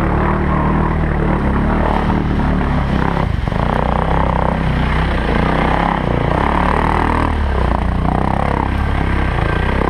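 4x4 ATV engine running steadily while riding.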